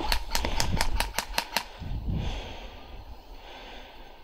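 Airsoft gun firing a quick string of about eight shots, roughly five a second, in the first second and a half.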